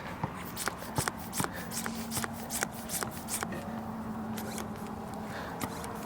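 Hand ball pump being worked to inflate a basketball: a run of short sharp clicks and rattles from the pump strokes, thinning out over the last couple of seconds.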